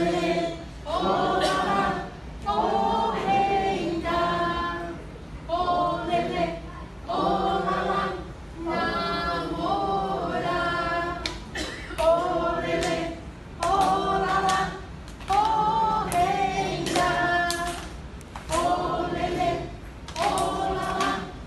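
Group of voices singing a cappella in circle singing: short sung phrases of about a second each, repeated with brief pauses between them.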